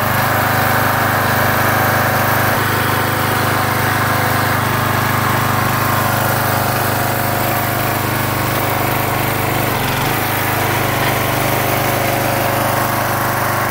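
Small gasoline engine of a hydraulic log splitter running steadily and driving the hydraulic pump, with a slight change in tone about ten seconds in.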